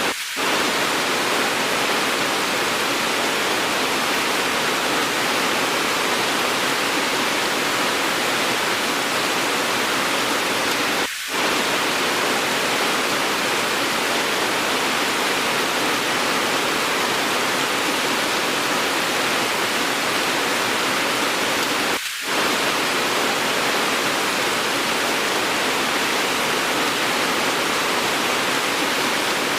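Steady hiss of heavy rain, even and unbroken except for a brief dip in level near the start, about eleven seconds in, and again about twenty-two seconds in.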